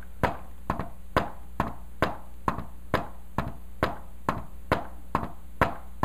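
Hand tapping on a whiteboard: a steady run of sharp knocks, a little over two a second with softer ones between them, beating out the galloping three-beat rhythm of an S4 heart sound (atrial gallop).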